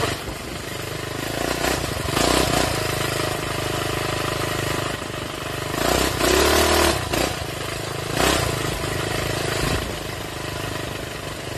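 Minibike's small engine running under way on a dirt trail. It revs up and falls back between about six and seven seconds in, with a few brief louder rushes of noise along the ride.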